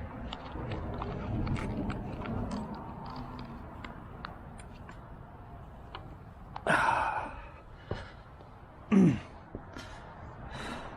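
Plastic and metal parts of a fuel pump assembly being handled, with scattered small clicks. A loud breathy rush comes about seven seconds in, and a short low sound falling in pitch about nine seconds in.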